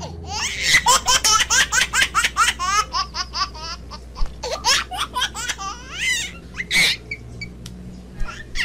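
High-pitched laughter: a fast run of short rising notes, about six a second, that thins out into scattered giggles after about three seconds.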